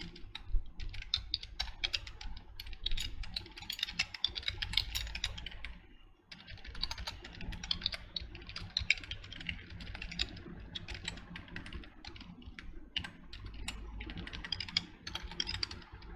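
Typing on a computer keyboard in fast runs of keystrokes, with a short pause about six seconds in.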